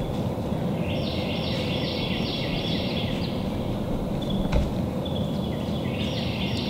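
A songbird singing a fast run of repeated, down-slurred whistled notes, twice, with a few single chip notes between, over a steady low rumble of background noise. A single sharp knock about four and a half seconds in.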